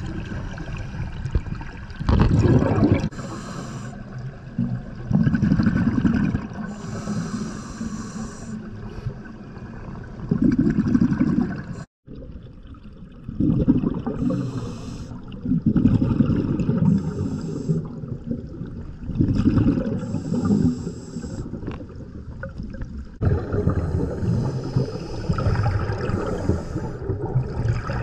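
Scuba diver breathing through a regulator underwater: a hissing inhalation, then a burst of exhaled bubbles, repeating every few seconds. The sound cuts out for a moment about halfway.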